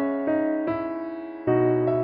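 Background music: a slow melody of single keyboard notes, with a deeper note coming in about one and a half seconds in.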